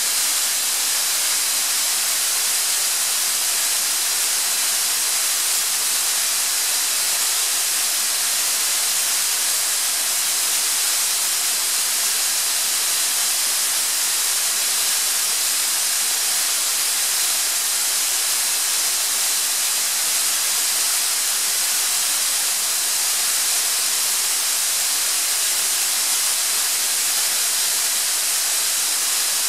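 Atlas Copco ZR 160 VSD two-stage oil-free screw air compressor running, heard as a steady, even hiss.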